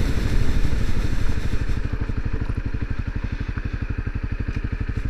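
Motorcycle engine coming down to idle as the bike rolls to a stop, then ticking over with an even, steady pulse.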